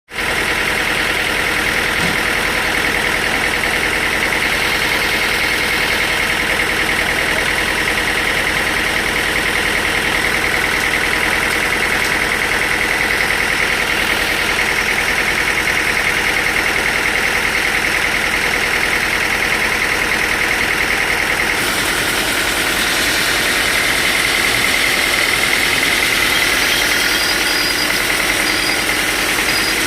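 Sawmill machinery running steadily, with a constant whine; about two-thirds of the way through, the sound shifts as its low rumble drops away.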